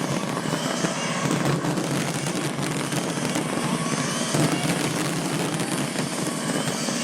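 Fireworks popping and crackling in a dense, continuous stream.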